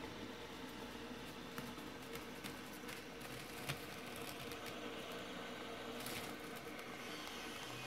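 Black and silver metal fidget spinner spinning on a wooden tabletop: a faint steady whir with scattered light ticks.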